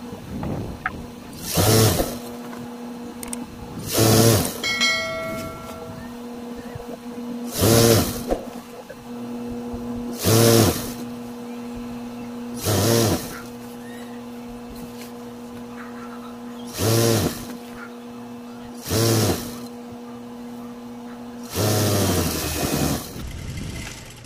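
Juki industrial sewing machine stitching a blanket hem in short runs of about a second, eight times, each run speeding up and slowing down. A steady low hum sits under most of it.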